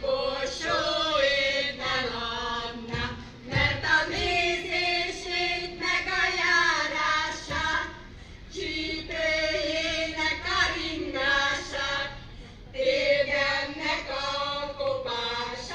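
A group of women singing together in the style of a Hungarian folk-song circle, heard through a stage PA. Held notes run in sung phrases, with short breaks about halfway through and again near the end.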